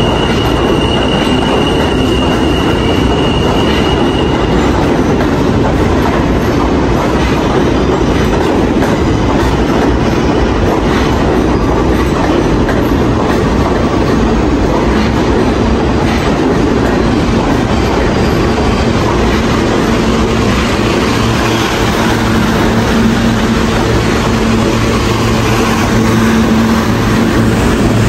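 New York City subway trains running through an underground station: a steady loud rumble of steel wheels on rail. A thin high wheel squeal sounds for the first four seconds or so, and a low steady hum joins about two-thirds of the way in.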